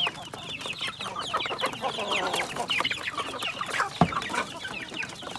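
Native chickens clucking, many short high falling calls overlapping from several birds. A single sharp knock about four seconds in.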